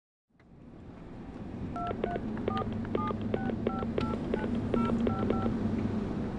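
Telephone keypad tones: a phone number dialled key by key, about ten short two-note beeps in a quick run from about two seconds in. Under them is a steady low hum that fades in at the start.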